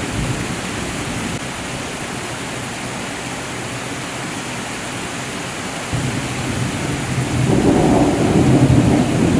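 Heavy rain falling steadily, with distant thunder rumbling in about six seconds in and growing louder toward the end.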